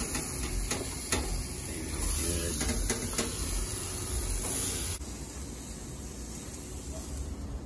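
Steady hiss and low rumble of a hot gas grill, with oiled eggplant slices sizzling as they are laid on the steel grate and a few light taps in the first two seconds. The sound cuts abruptly to a slightly quieter hiss about five seconds in.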